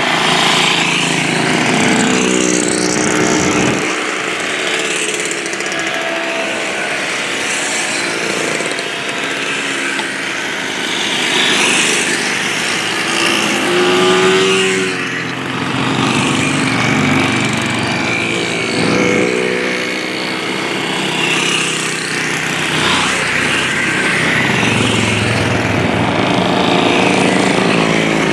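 A string of vintage motorcycles riding past one after another, their engine notes rising and falling in pitch as each one goes by.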